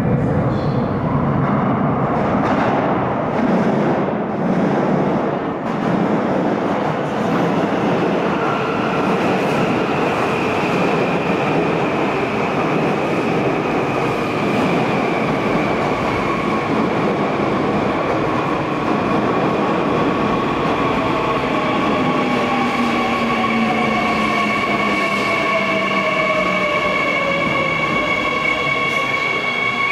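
Seoul Line 3 subway train running into an underground station: a steady rumble of wheels on rail, then whining tones that slide downward as the train slows, with a high squeal growing near the end as it brakes.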